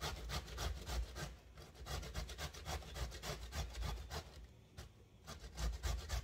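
Zucchini being grated on a metal grater: a quick, even run of rasping strokes, several a second.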